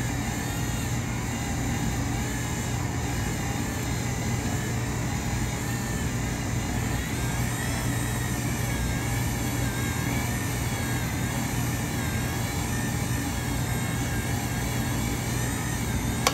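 Cuisinart stand mixer's motor running with a steady hum and a faint wavering whine as its flat beater works thick choux pastry dough in a stainless steel bowl.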